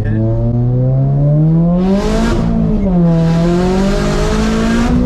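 Turbocharged 2022 Subaru BRZ's 2.4-litre flat-four accelerating hard, its pitch rising, dipping briefly at an upshift a little over two seconds in, then rising again and dropping near the end, with a loud rushing hiss from the turbo under boost.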